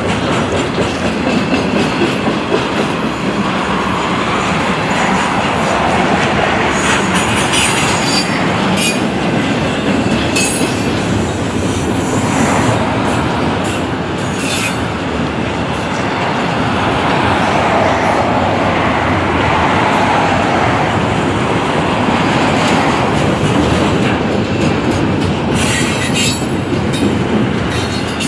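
Double-stack intermodal freight train's well cars rolling steadily past on steel rails, a continuous heavy rumble and rattle of wheels and cars. Brief high-pitched wheel screeches cut through several times, clustered about a third of the way in and again near the end.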